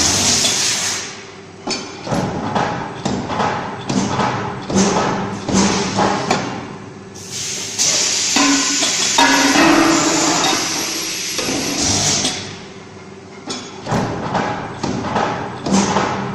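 Refractory ball press machine running: a string of short knocks and clanks at an uneven pace, with stretches of hissing through the middle.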